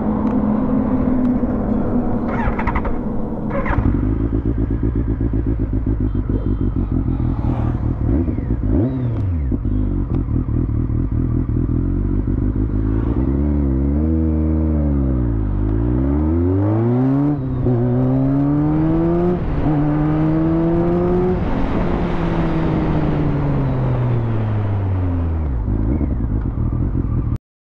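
BMW sport motorcycle engine running at idle, then revving as it pulls away and accelerating through the gears, the pitch rising in steps. Near the end the pitch falls steadily as the bike eases off.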